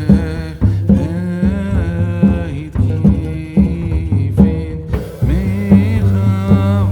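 Background music: a singing voice with a pitch that bends and slides, over a steady drum beat and a deep bass line.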